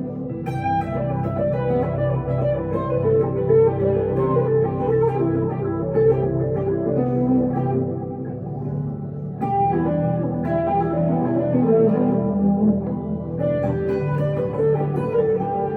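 Electric guitar, a 1962 Gibson Les Paul Custom through a Two-Rock Emerald Pro valve amplifier with delay and reverb, playing melodic lead phrases. A new phrase starts about nine and a half seconds in.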